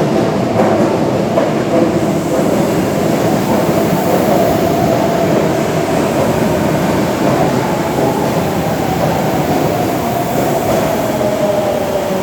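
Osaka Metro Tanimachi Line 22 series subway car running, a steady rumble of running noise with a whine that drops slightly in pitch near the end.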